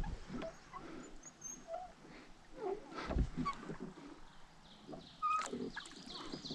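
Birds calling in short, scattered chirps, with a few knocks.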